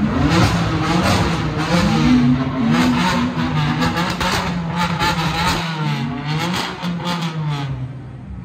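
Car engine revving hard: the revs climb sharply at the start, are held high, rising and falling, and drop away near the end, with repeated sharp cracks throughout.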